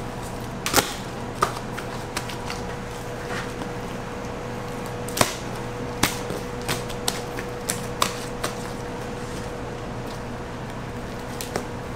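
Irregular sharp taps and knocks from dough slabs and a plastic scraper handled on a stainless steel worktable, the loudest about a second in and about five seconds in, over a steady hum.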